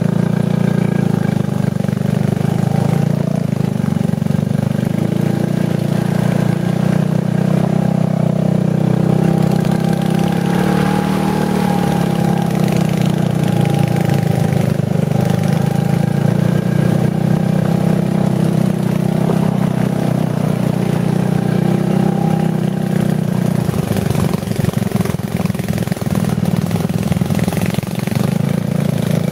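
Off-road buggy engine running steadily, a low drone that barely changes pitch. It turns rougher and choppier about five seconds before the end.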